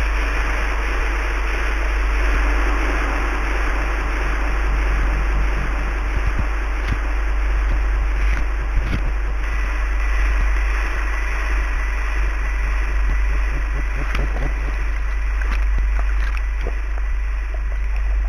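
Steady rushing ride noise of a San Francisco cable car, taken on a GoPro: wind rumble on the microphone and the car running on its tracks, with a few scattered clicks and clunks.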